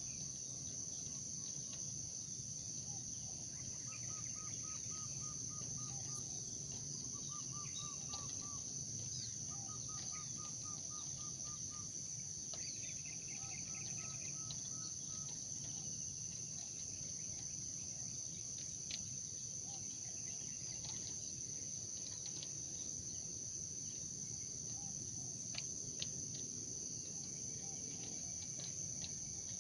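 Steady high-pitched chorus of crickets, with several short runs of rapid, evenly repeated bird call notes during the first half.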